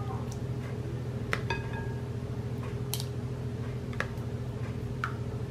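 A metal ladle clinking against a glass bowl and a stainless steel mixing bowl while scooping thick cream-of-mushroom sauce: about five separate clinks, some with a short ring, over a steady low hum.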